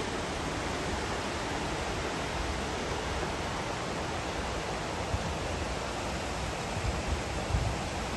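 Floodwater rushing in a steady, unbroken wash of noise, with a few low bumps in the second half.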